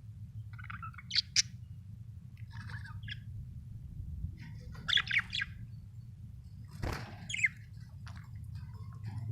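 Budgerigar chirping in short, scattered bursts of high chirps and squawks, loudest about one second and five seconds in, over a steady low hum, with a single knock about seven seconds in.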